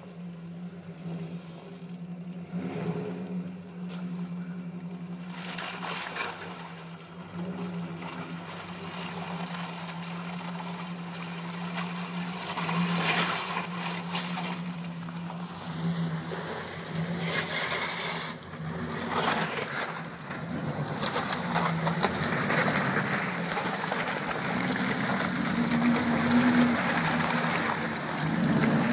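Jeep Grand Cherokee's 5.2-litre V8 running at low revs as the truck crawls through a muddy water hole, growing louder as it comes close. Muddy water sloshes around the tyres in the second half.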